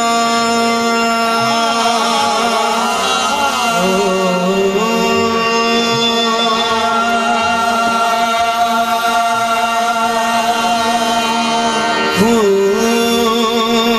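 Qawwali: singers hold long, gliding notes over a bed of steady sustained notes, with light drumming underneath.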